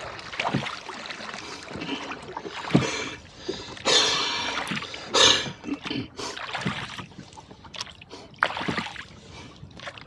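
Rowboat under oars: water splashing and sloshing at the oar blades in irregular strokes every second or two, the loudest about four and five seconds in.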